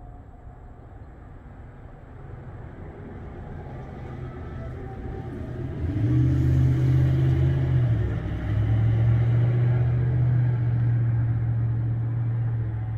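A motor vehicle passing on the street: a low engine and road rumble builds over the first half, is loud for several seconds with a brief dip in the middle, and fades near the end.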